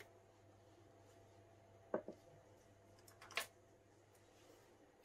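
Near silence: room tone with a faint low hum, broken by two brief, faint handling sounds about two seconds and three and a half seconds in.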